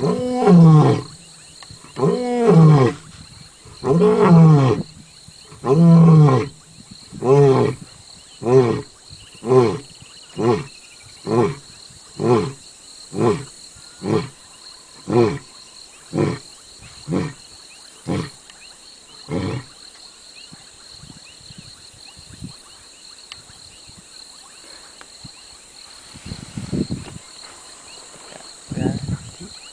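A lion's roaring bout: a few long, loud moaning roars about two seconds apart, then a run of shorter grunts about once a second that grow weaker and die out about twenty seconds in.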